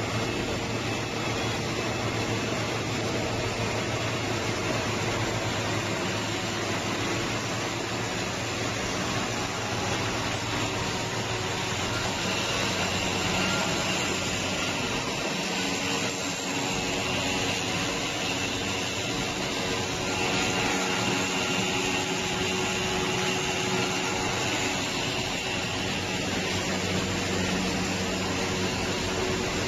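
PET strap production line machinery running steadily, a constant mechanical noise with a low hum and a faint high whine.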